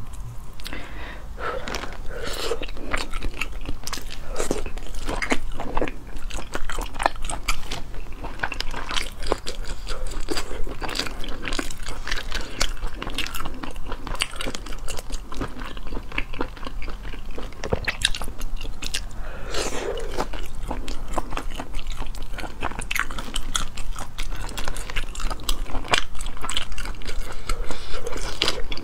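Close-miked eating sounds: a person chewing and smacking on sea snail meat, with many small clicks and crackles of the shells being handled and pulled apart.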